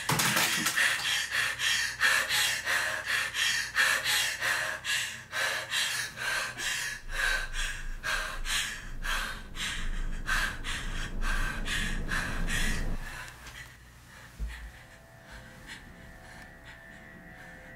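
A young woman breathing in rapid, panicked gasps, one hard breath after another. About 13 seconds in, the breathing stops and only a faint low hum remains.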